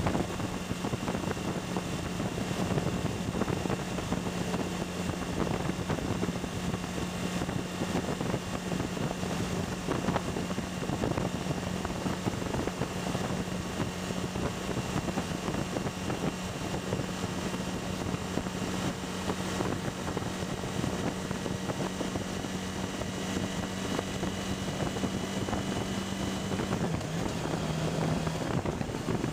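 Suzuki V-Strom V-twin motorcycle riding at a steady speed, its engine note holding steady under a heavy wash of wind noise on the microphone. The engine note dips slightly near the end.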